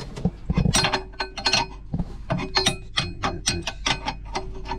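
Combination spanner working the nuts on the rudder stuffing-box flange: quick metal clicking and clinking in irregular clusters, several a second, as the nuts are turned.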